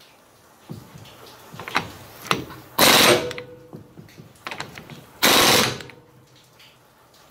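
Impact wrench hammering on the pinion nut of a Ford 8.8 rear differential in two short bursts, about two and a half seconds apart, with small metal clicks of the socket in between.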